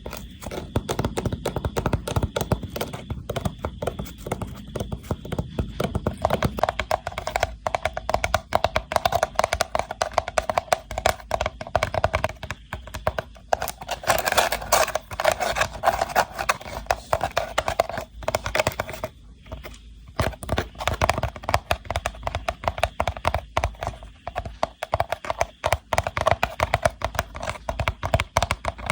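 Rattan box tapped rapidly and continuously by hand, a dense run of light clicks and knocks, with a brief pause about two-thirds of the way through.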